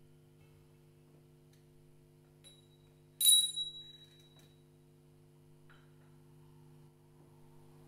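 A quiet drone of several steady low notes held by EBow-driven guitar strings. About three seconds in, a small tuned bell is struck once and rings brightly for about a second, with a couple of faint taps around it.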